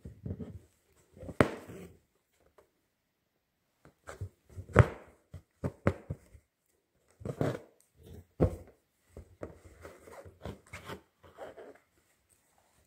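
Needle and thread being worked through fabric stretched tight in a wooden embroidery hoop: about a dozen irregular sharp taps and short scratchy rasps, with a pause of about two seconds early on.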